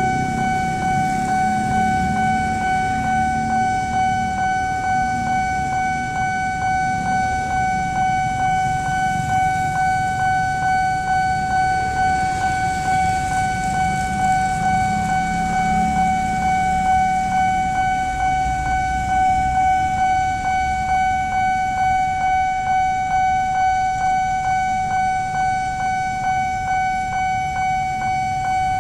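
Railway level-crossing warning alarm sounding continuously: one steady ringing tone with a rapid pulsing beat, over the low rumble of road traffic. It warns that a train is approaching the crossing.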